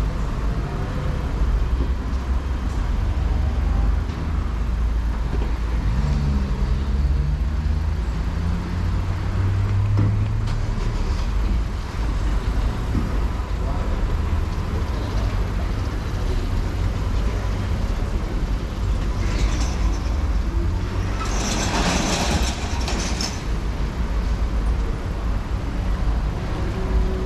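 Motor vehicle noise: a steady low rumble, with a loud hiss lasting about two seconds roughly two-thirds of the way through.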